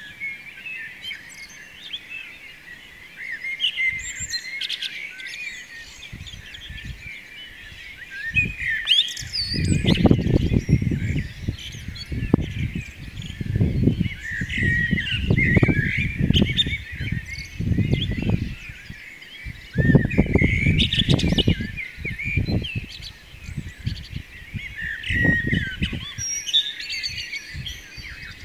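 Dawn chorus of many songbirds chirping and trilling together. From about a third of the way in, irregular low rumbling bursts, each a second or so long and louder than the birdsong, break in repeatedly.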